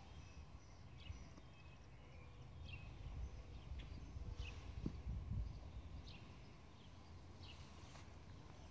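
Small birds chirping now and then in the background, short high calls scattered throughout, over a low rumble that grows louder in the middle.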